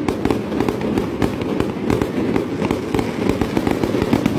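Fireworks going off in a rapid, unbroken string of bangs and crackles, several a second.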